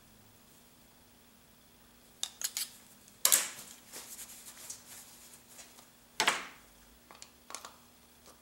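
Hand handling of small metal parts and a paper towel: a steel shaft and diamond file clicking lightly, the shaft being wiped with a paper towel, and the shaft being fitted into a nylon gear. A few light clicks come about two seconds in, then two louder clattering rustles about three seconds apart, with soft handling noise between.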